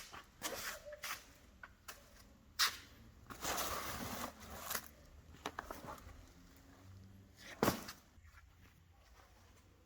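Scattered clicks and knocks of hands working on a car's interior parts, with a rustling, scraping stretch a few seconds in and a sharp knock near the end.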